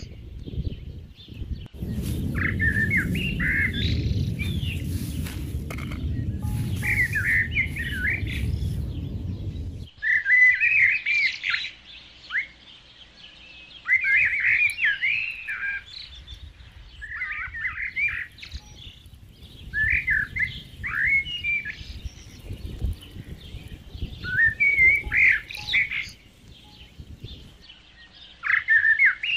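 Small birds singing: short warbled chirping phrases repeat every two to three seconds. A low rumble runs underneath for the first several seconds, then stops abruptly.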